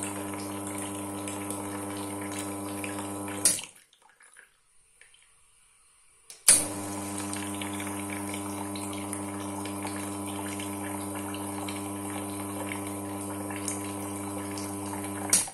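Wega single-group heat-exchanger espresso machine's pump running with a steady hum, water hissing through. It cuts off with a click about three and a half seconds in, is silent for about three seconds, then starts again with a loud click and runs until it clicks off just before the end.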